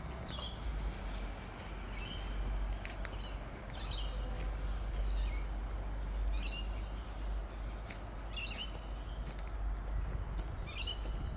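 A bird calling over and over, a short high call about every one and a half to two seconds, over a steady low rumble and a few faint clicks.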